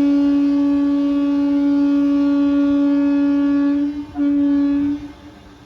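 Passing express train's horn: one long steady blast of about four seconds, a brief break, then a shorter second blast.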